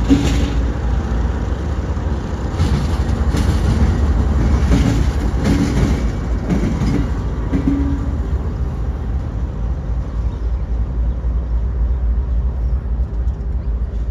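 Freight train cars rolling past with a steady low rumble, with repeated knocks and brief squeals over the first eight seconds or so that thin out after that.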